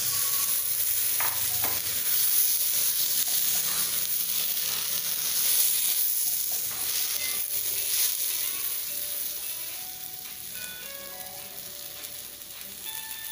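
Rice, dal and freshly added vegetables sizzling in hot oil in a pressure cooker pan as they are stirred; the sizzle eases off over the last few seconds.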